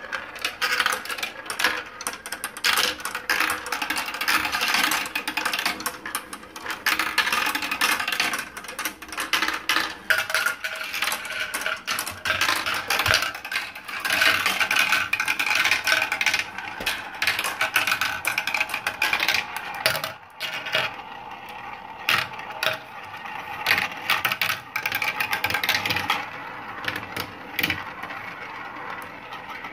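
Glass marbles rolling and clattering through a plastic marble run: a steady rolling whirr as they spiral around plastic funnel bowls, broken by many quick clicks as they drop through tubes and knock against the track and each other.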